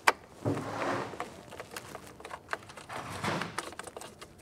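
A small screw being turned by hand with a nut driver into the sheet-metal bracket of a refrigerant identifier: a sharp metallic click near the start, then scraping and rustling of the tool and gloved hand, with scattered light clicks.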